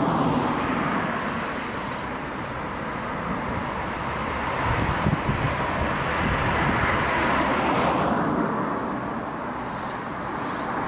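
Road traffic going by: a steady hiss of passing cars that swells in the middle and fades again. Wind buffets the microphone with a brief low rumble about five seconds in.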